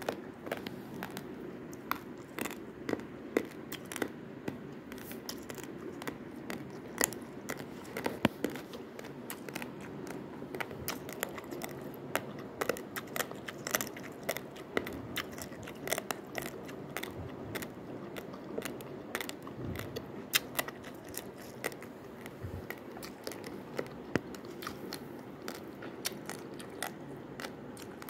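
Raw basmati rice being chewed, the dry grains cracking between the teeth in an irregular stream of sharp little crunches.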